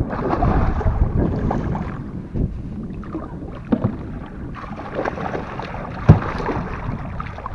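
Water splashing as a hooked fish thrashes at the surface beside an inflatable boat, with irregular knocks and rustling from the men moving in the boat; the sharpest hit comes about six seconds in.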